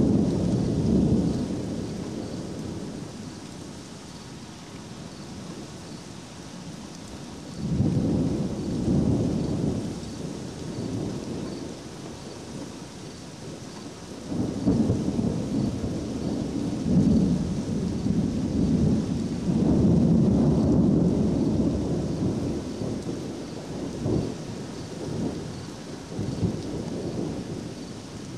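Thunder rumbling in several long, low rolls over a steady hiss of rain. One roll fades out in the first few seconds, another swells about eight seconds in, and the longest and loudest runs from about fourteen seconds to twenty-three seconds, followed by smaller rumbles near the end.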